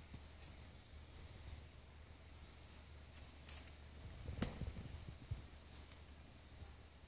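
Faint rustling and scraping of cats moving and playing on dry dirt and stones, busiest around four seconds in as a kitten pounces. Two short, high chirps sound about a second in and again near four seconds.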